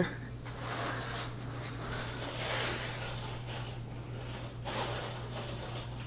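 Quiet room tone: a steady low hum with soft, shifting rustling noise.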